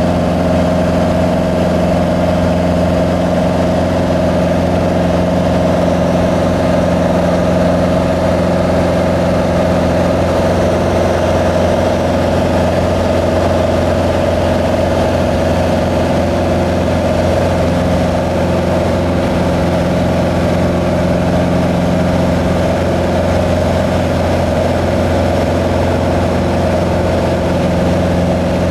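Small plane's engine running steadily in flight, a constant drone heard from inside the cabin.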